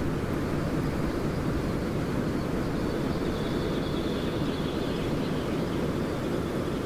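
A steady, low rushing noise with no breaks, like the texture of an ambient sound-art piece; a faint high thin tone rises out of it for a couple of seconds mid-way.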